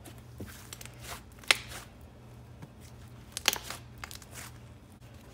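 Hands kneading and pressing a soft clay slime (glue slime mixed with clay) on a countertop: soft sticky crackling and tearing sounds, with two sharper pops, one about a second and a half in and another about two seconds later.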